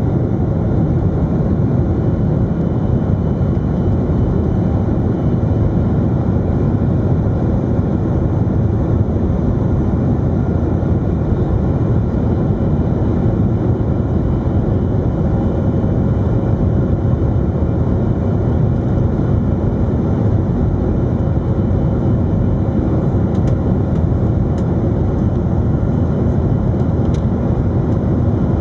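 Boeing 737-300's CFM56-3 jet engines during takeoff, a loud, steady low rumble that holds one level throughout, with a faint steady hum above it.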